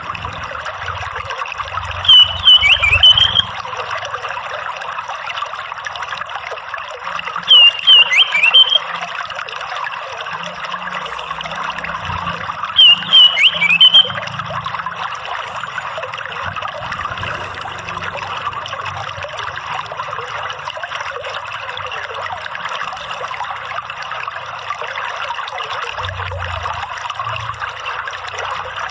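Running water trickling steadily, with an orange-headed thrush giving three short, loud bursts of song about five seconds apart in the first half, each made of quick high notes; after that only the water continues.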